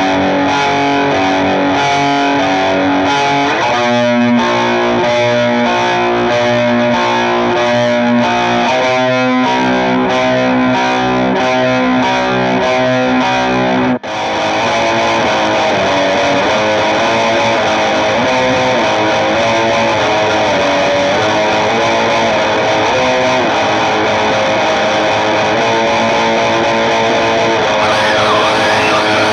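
Music with distorted electric guitar through effects. About halfway through it breaks off for an instant and goes on in a denser passage.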